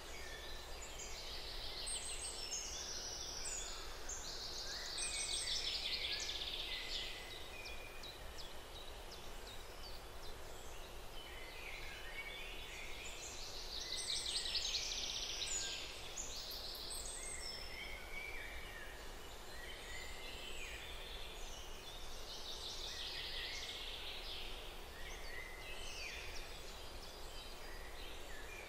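Many small birds chirping and singing together over a soft steady hiss, in waves that swell about five seconds in and again around fourteen seconds in.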